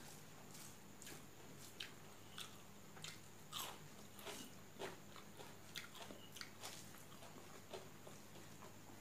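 Faint eating sounds: a dozen or so soft, crisp crunches and clicks at irregular intervals, the loudest about three and a half seconds in, from chewing and hand-mixing rice on a steel plate.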